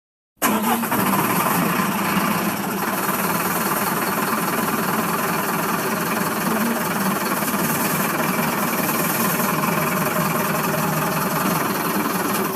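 An engine running steadily with a rapid rattling clatter, starting abruptly after a moment of silence.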